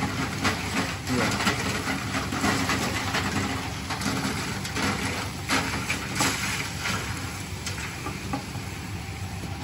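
Rotating sand-frying drum for kerupuk pasir turning with a steady machine hum, with many short clicks and rattles as the hot sand and crackers tumble inside and a wire scoop works in the drum.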